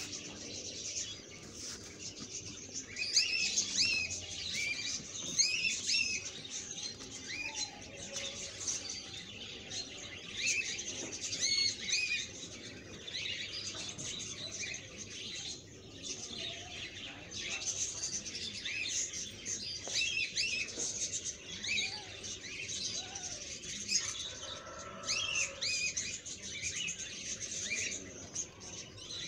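Small birds chirping and twittering: a steady run of short, high, up-and-down calls.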